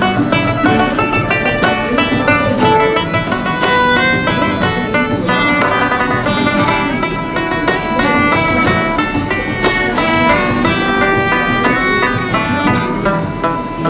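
Banjo and bodhrán playing an Irish traditional jig together: quick, steady plucked banjo melody over the drum's beat.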